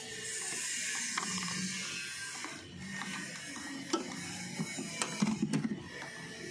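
Tools and parts clicking and rattling as hands work in a car's engine bay, with a hiss through the first two seconds or so and a few sharp clicks later on.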